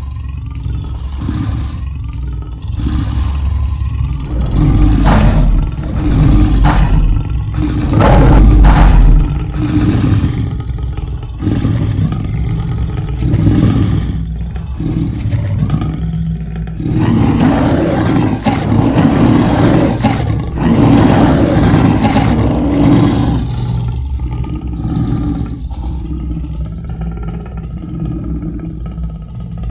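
Monster roar sound effect: a continuous run of deep roars that swell and fade, loudest about five to nine seconds in and again from about seventeen to twenty-three seconds.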